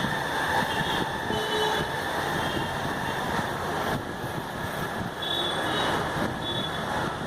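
Steady background rumble with no clear individual events, like distant traffic or a running fan.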